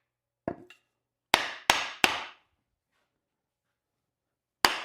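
Hammer blows driving an axe head down onto a hickory handle to hang it: a light knock, then three sharp strikes about a third of a second apart, and one more strike near the end.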